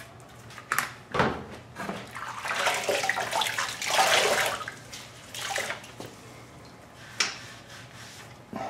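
Hand trigger spray bottle of degreaser spraying in short hissing squirts, several in a row, with a longer run of spraying in the middle.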